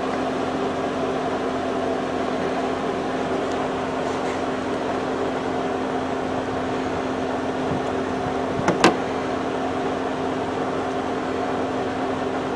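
A steady machine hum with a constant low tone, and a single sharp click about nine seconds in.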